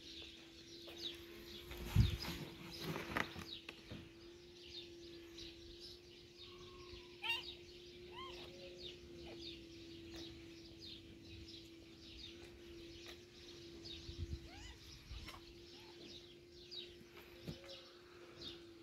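Small birds chirping busily in the background, many quick high chirps, over a steady low hum, with a few soft knocks about two, three and fourteen seconds in.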